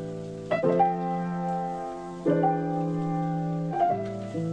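Slow, soft piano music: sustained chords struck again every second and a half or so, with no singing.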